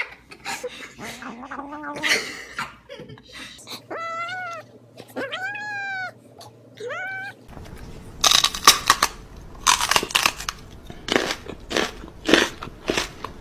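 A domestic cat meows three times, each call rising then falling in pitch, after some small clicks of licking from a spoon. Then comes a run of short, harsh noisy bursts, about two a second, louder than the meows.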